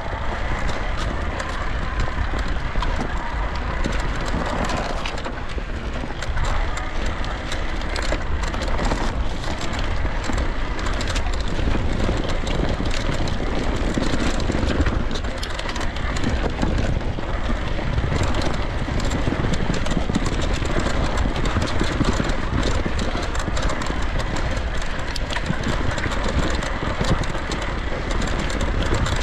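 Electric mountain bike being ridden over a trail: continuous rumble of tyres and riding noise, with frequent rattles and knocks from the bike.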